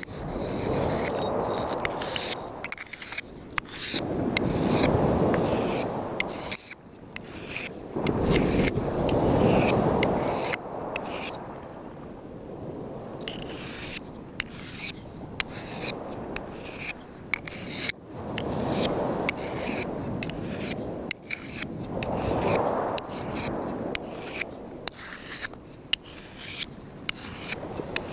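A serrated knife sawing and scraping through bait on a beach stone, giving many short scrapes and sharp ticks of the blade against the rock. Surf washes in and out behind it in swells a few seconds long, the loudest sound at times.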